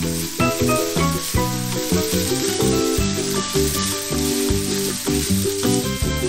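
Spaghetti and bacon sizzling in a hot frying pan as they are tossed and stirred with tongs, with background music playing over it.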